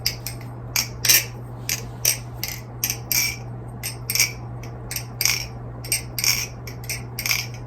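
NRB Vortex balisong (butterfly knife) being flipped: a steady run of crisp metal clicks and short rattles, about three a second, as the handles swing and snap closed and open around the blade.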